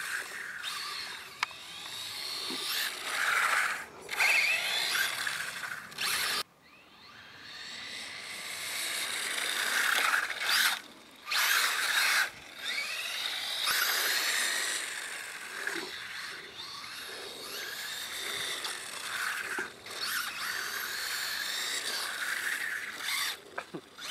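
A 1/14-scale Vaterra Kemora electric RC rally car's motor and four-wheel-drive drivetrain whining, rising and falling in pitch as it speeds up and slows. The whine cuts out abruptly several times, when the throttle is let off or the brake is applied.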